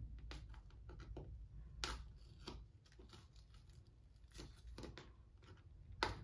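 FrogTape painter's tape being slowly peeled off a textured acrylic-painted canvas: faint, scattered crackles and ticks, with a sharper snap about two seconds in and another just before the end.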